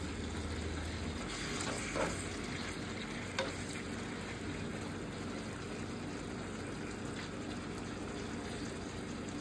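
Marinated beef pieces sizzling in a nonstick frying pan as a spatula stirs them, with two light knocks about two and three and a half seconds in.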